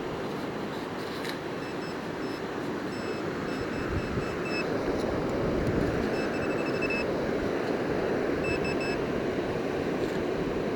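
Metal detector giving groups of short, high beeps over a steady rushing of surf.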